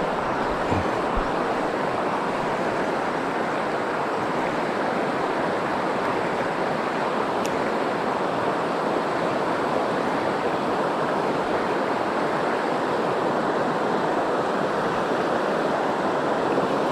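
Steady rush of a shallow river running over rocks and a riffle.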